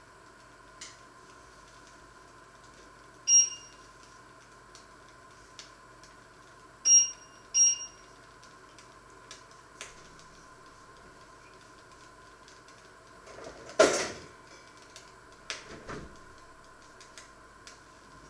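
Three short electronic beeps, the last two close together, from a kitchen appliance, then a loud clatter of kitchenware about two-thirds of the way in and a smaller knock a couple of seconds later. A faint steady hum runs underneath.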